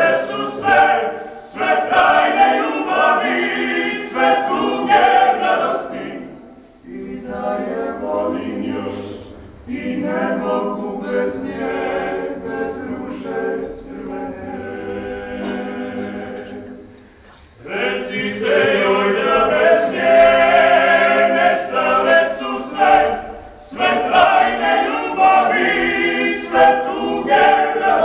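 Klapa, a Croatian a cappella vocal ensemble, singing in close harmony. A softer passage starts about a quarter of the way in, and the singing swells louder again about two-thirds through.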